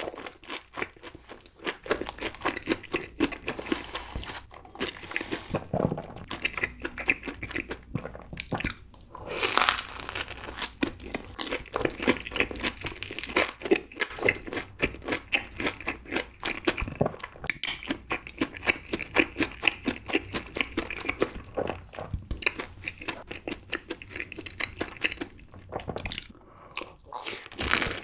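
Close-miked chewing and crunching of a batter-fried mozzarella corn dog coated in cheddar cheese sauce: a steady run of irregular crisp crunches and wet mouth sounds.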